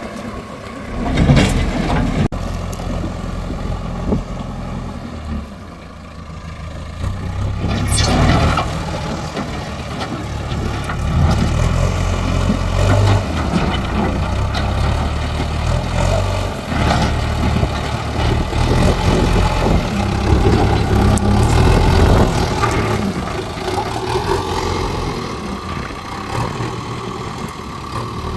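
JCB loader's diesel engine working, its low rumble rising and falling with the load, with a few louder noisy moments about a second in and again about eight seconds in.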